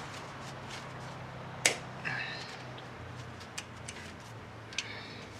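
A few sharp clicks and clinks from hand work on a pickup's engine, the loudest about a second and a half in, with a couple of short squeaks, over a steady low hum.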